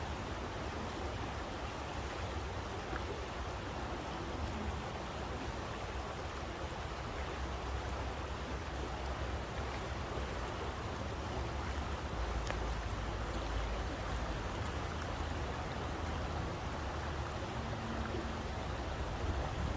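Steady rushing of flowing water with a deep low rumble underneath and a few faint ticks.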